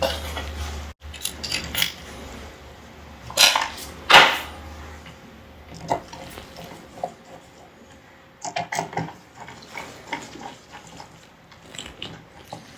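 Small metal carburettor parts and screws clinking and clicking against metal as they are dropped in and worked with hand tools during carburettor reassembly. There are scattered sharp clicks, the loudest two about three and a half and four seconds in.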